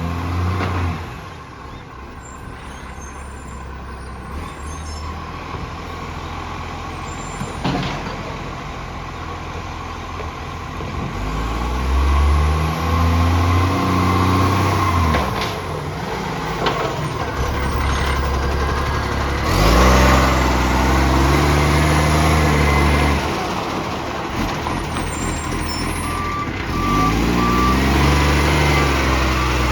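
Recycling garbage truck's diesel engine, with an exhaust leak, revving up and back down three times between stretches of idle. There are a few sharp knocks and a burst of air hiss along the way.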